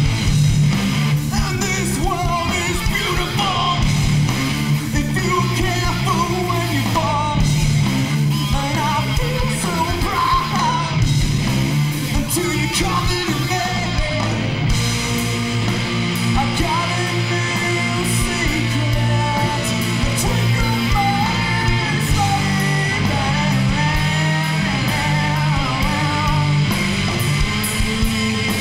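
Live rock band playing: electric guitars, bass guitar and a drum kit, with a singer's voice over the band.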